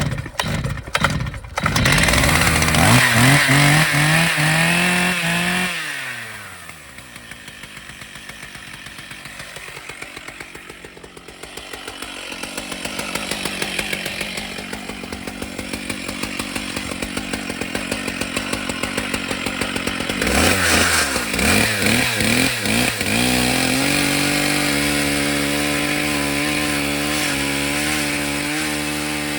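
Chainsaw engine revved high for several seconds, then dropping to a low running speed. About twenty seconds in, it revs up again and holds a steady high speed.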